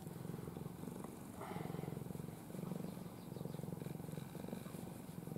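Tabby-and-white domestic cat purring contentedly while being stroked: a low, rhythmic purr in bouts of about a second, with short breaks between breaths.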